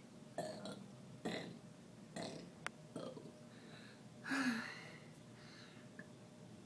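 A boy burping the letters of the alphabet one after another: a series of short burps about a second apart, the longest and loudest about four seconds in.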